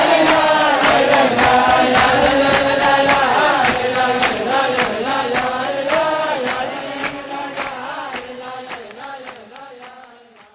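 Recorded Ashkenazi nigun: a group of voices singing a wordless melody over a steady beat of about three strokes a second. The song fades out over the last few seconds.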